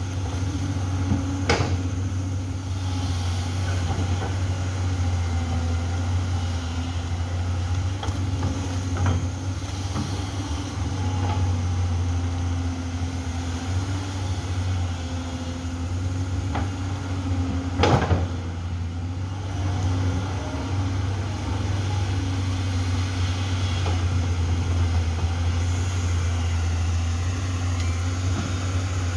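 Amphibious excavator's diesel engine running steadily under working load, with two sharp knocks, one near the start and one about two-thirds of the way through.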